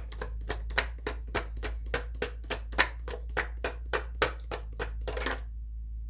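A tarot deck being shuffled by hand: a steady run of quick card slaps, about four or five a second, that stops about five seconds in. A low steady hum lies underneath.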